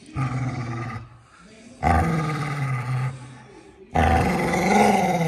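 Pet dog growling in three long rumbles, each a second or more, with short pauses between. It is a warning growl over her food packet as her owner asks her to hand it over: growling, not biting.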